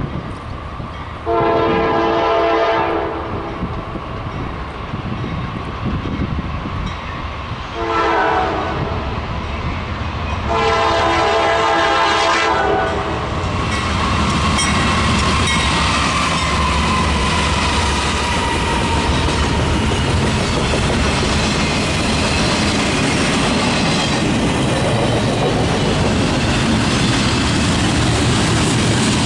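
Locomotive air horn sounding three blasts: long, short, long. Then the steady noise of the train's wheels on the rails as it passes.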